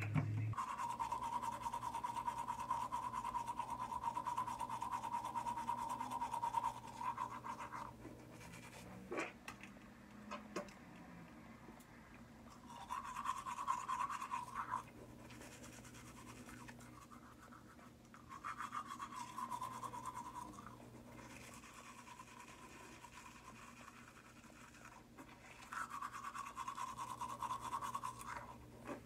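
Teeth being brushed with a toothbrush, in four stretches of a few seconds each with short pauses between; the first stretch is the longest and loudest.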